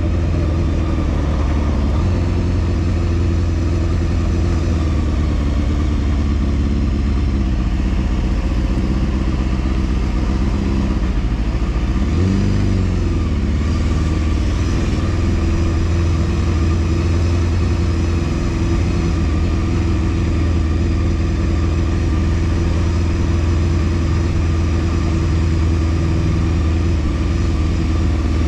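Honda Hornet 250's inline-four engine running steadily while riding on the road. The engine pitch dips and rises briefly about twelve seconds in.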